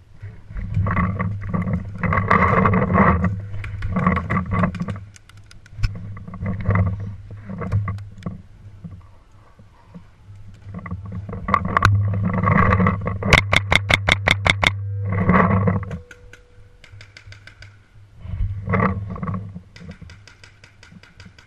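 Paintball marker firing a rapid string of about ten shots over a second and a half, a little past the middle, with scattered single pops of other shots around it. A steady low rumble on the microphone runs underneath.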